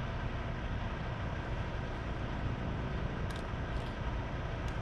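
Steady outdoor background rumble, with a few faint short clicks starting about three seconds in.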